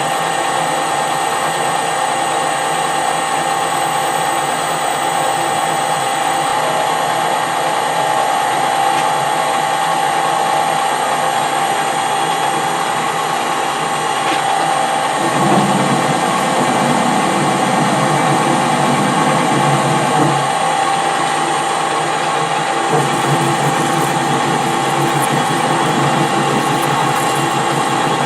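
Metal lathe running with a steady whine while a parting tool cuts a piece off the bar stock. A lower, rougher cutting noise comes in about halfway through and again near the end.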